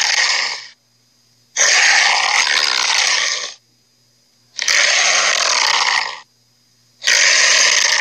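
Cartoon dinosaur Red Claw's roars, played from a laptop: four long roars of about one to two seconds each with short pauses between. The first ends within the first second and the last runs on past the end.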